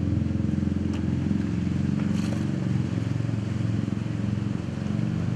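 An engine running steadily at idle: a low, even rumble with a regular pulse.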